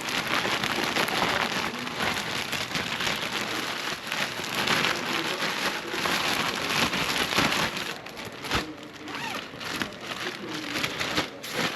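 Plastic bag of catfish pieces and seasoning being shaken and worked by hand, a dense rattling crinkle for about eight seconds, then a few scattered crinkles and taps as the shaking stops.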